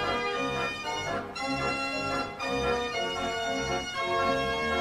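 Background music: sustained organ-like keyboard notes and chords over a low bass line.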